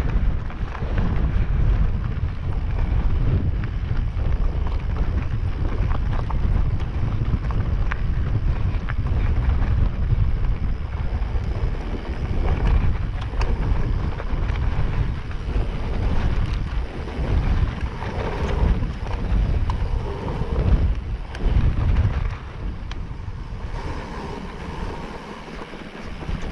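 Wind buffeting the microphone over the rumble of a Specialized Levo e-mountain bike rolling along a stony track, with occasional knocks from the tyres and bike. It gets quieter near the end as the bike leaves the stones for grass.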